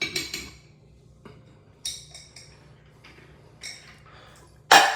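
Sharp metallic clinks and clicks as an adjustable wrench and a faucet aerator are worked loose and handled: about eight separate taps with short ringing, the loudest near the end.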